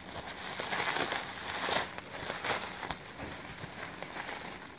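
Packaging crinkling and rustling as it is handled, in several short bursts over the first three seconds, then quieter.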